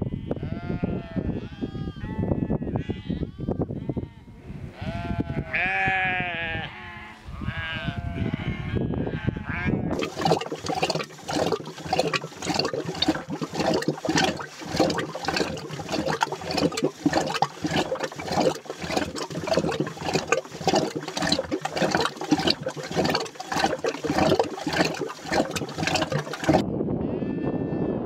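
A flock of sheep bleating for the first ten seconds or so. Then a sudden change to the even, rhythmic knocking and sloshing of a wooden churning stick spun back and forth by a rope in a pot of milk, traditional hand-churning, which stops shortly before the end.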